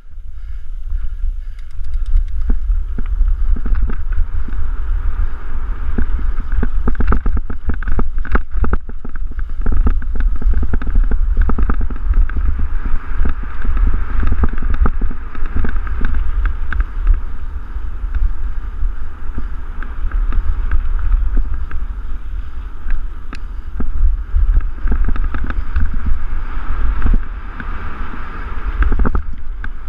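Wind buffeting the microphone of a GoPro on a mountain bike running fast downhill on dirt singletrack, with the bike rattling and clattering over bumps in quick runs of clicks and knocks.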